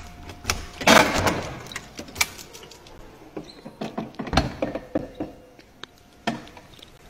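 A key turning in the lock of a wooden door and the door being opened, with scattered clicks and knocks from the lock and latch. The loudest is a short rustling burst about a second in, and there is a heavier knock past the middle.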